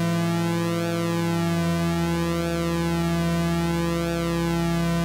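MFOS Sound Lab Mini-Synth's analogue oscillators sounding a sustained, buzzy drone. One tone holds steady while another shifts pitch about a second and a half in and again near the end as a knob is turned.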